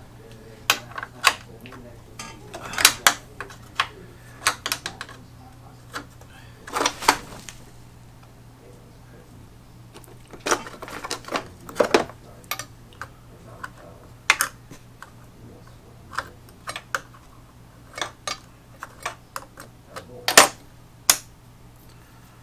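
Irregular clicks, taps and clinks of screws, a screwdriver and small metal light-fixture parts being handled, with a few louder knocks, over a steady low hum.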